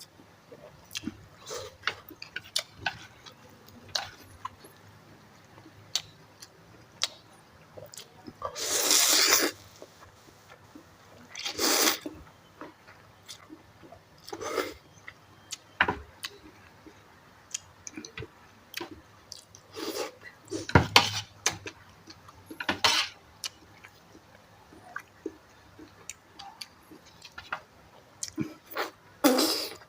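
A person eating a bowl of instant noodles: utensils clicking against the bowl and chewing, with several louder slurps of about a second each.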